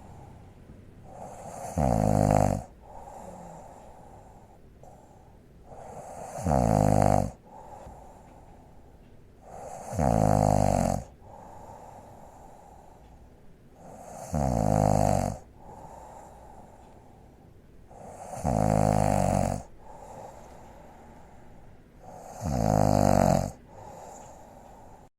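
A woman snoring: six loud snores about every four seconds, each lasting about a second, with quieter breathing between them.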